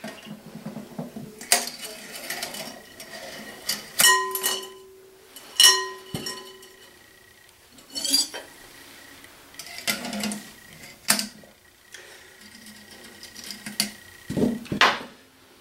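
Pyrex glass bowls, a wire grill rack and a black enamel pot knocking and clinking together as they are lifted apart and set down on a table. Two sharp clinks, about four and six seconds in, ring on briefly.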